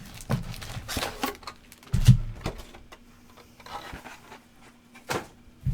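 Trading card boxes and packs being handled: scattered rustles and light taps, with a dull thump about two seconds in.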